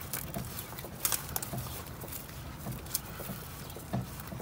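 Footsteps on grass at a steady walking pace while a canoe is carried overhead on a portage, with a few sharp clicks in between.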